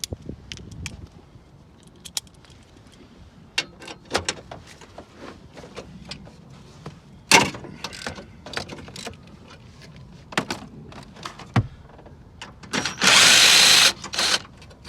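Metal tools and bolts clicking and knocking while a car's battery tray is unbolted. Near the end comes a loud, steady burst lasting about a second.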